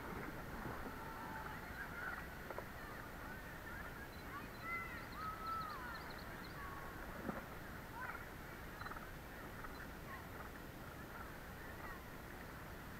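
Steady rush of river water with scattered faint, short bird-like calls and chirps over it.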